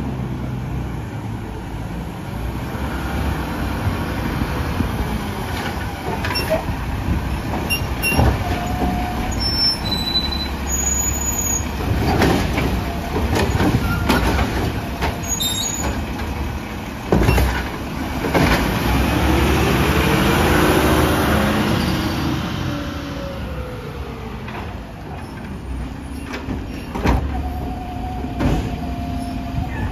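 Mack LR garbage truck's engine running, with the Labrie Automizer's automated side arm working a trash can: a series of clunks and bangs. Around the middle the engine revs up and falls back over a few seconds as it drives the hydraulics.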